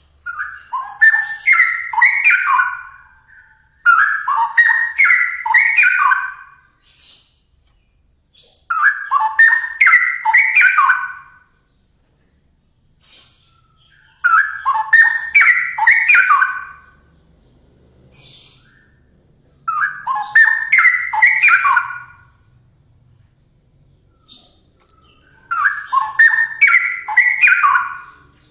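Straw-headed bulbul (cucak rowo) singing: six rich, warbled song phrases, each about two to three seconds long, separated by pauses of a few seconds.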